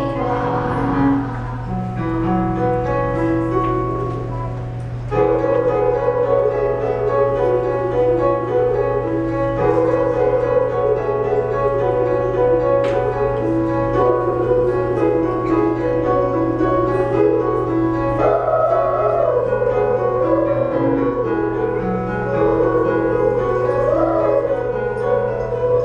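Live instrumental music from a school ensemble: piano with sustained notes, joined about five seconds in by a louder melody line that wavers in pitch.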